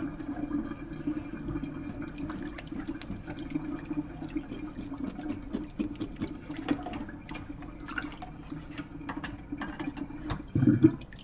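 Water sloshing and splashing in a stainless steel kitchen sink as hands work and scale a crappie under the water, with many small clicks and scrapes. A louder thump near the end.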